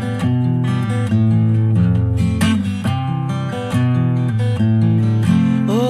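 Song music in an instrumental break with no singing: steady strummed guitar chords over a bass line.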